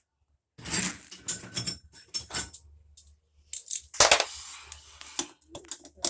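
Small metal pieces clinking and rattling as they are handled, with a burst of clatter about a second in and a louder one about four seconds in.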